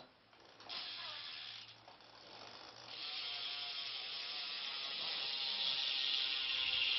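BMX rear cassette hub freewheeling as the rear wheel is spun, its pawls ratcheting so fast they blur into a buzz: a short spin first, then a longer steady buzz from about three seconds in. The hub's sound is of average loudness, not too loud and not too quiet.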